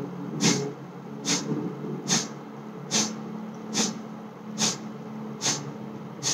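Kapalbhati pranayama breathing: short, forceful exhalations snorted out through the nose at an even pace, a little more than one a second, eight in all. A steady low hum runs underneath.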